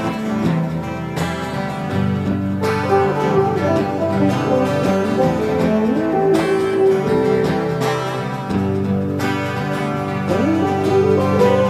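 Background music led by a plucked acoustic guitar, playing steadily throughout.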